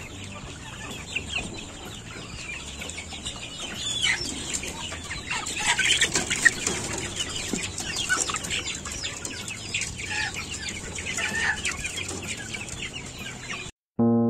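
A flock of Kampung Unggul Balitbangtan (KUB) chickens clucking, with many short calls overlapping. The sound cuts off abruptly near the end.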